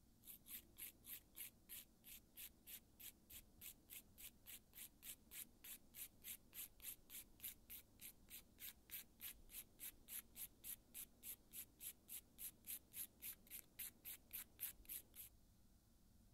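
A curved nail file rasping back and forth over a gel-polished fingernail in quick, even strokes, about three a second, filing off most of the gel polish. The strokes stop near the end.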